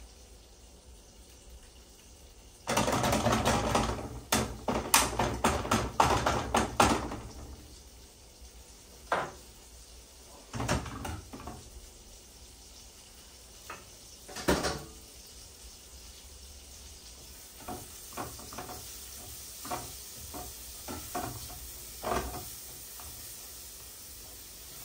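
A utensil stirring, scraping and tapping in a frying pan of garlic cooking in butter and olive oil. A loud spell of clatter comes a few seconds in, then scattered knocks and a run of light taps near the end.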